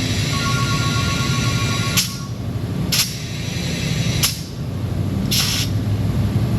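A phone ringing: two steady tones sounding together for about two seconds near the start, over a steady low hum, with a few sharp clicks and a brief hiss near the end.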